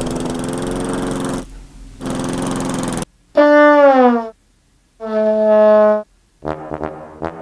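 A man imitating sound effects with his voice: a buzzy, noisy drone twice, then a loud honking tone that falls in pitch, a steady honk, and a quick stutter of short buzzy pulses near the end.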